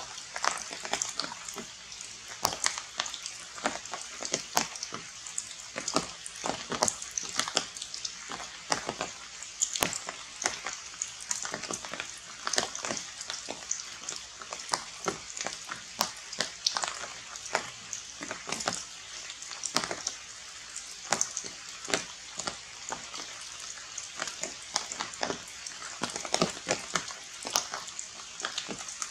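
Rain falling and dripping on forest leaves: a steady hiss dotted with many sharp, irregular drop taps.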